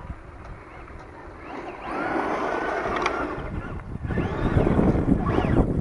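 Traxxas Slash 2WD electric RC short-course truck driving fast on gravel: its motor whine rises and falls in pitch with the throttle over the noise of tyres on loose gravel. It grows louder from about two seconds in and is loudest as it passes close, about four seconds in.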